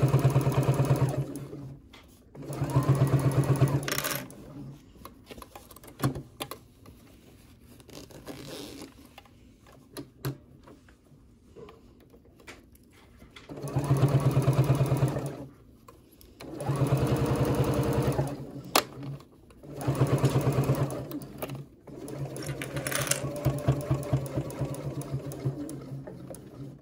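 Electric domestic sewing machine stitching through three layers of fabric and zipper. It runs in about five short bursts of one to two seconds each, then a softer, longer run near the end. There are quiet pauses with small clicks between the runs.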